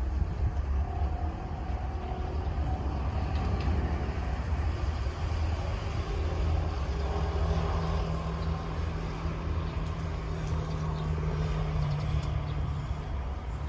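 A vehicle engine's steady low rumble, with a humming tone that comes in about halfway through and holds until near the end.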